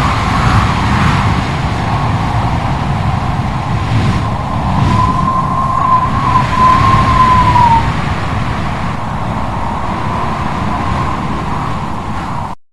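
Wind sound effect: steady blowing wind with a low rumble and a hollow whistle. About halfway through the whistle sharpens into a clear wavering tone that falls away, and the sound cuts off suddenly near the end.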